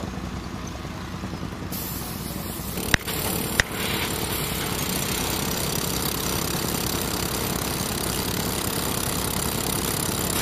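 DeWalt rotary hammer drill running steadily, boring an anchor hole into concrete, with two sharp knocks about three seconds in.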